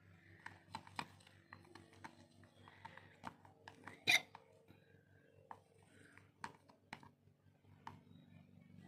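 A thin stick stirring thick shampoo slime in a plastic container: irregular clicks, taps and soft squelches, with one louder sharp click about four seconds in.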